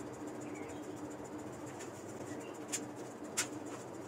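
A few light taps and clicks of puff-pastry rolls and a baking tray being handled and set down on a wooden board, about three seconds in and again near the end, over a low steady hum.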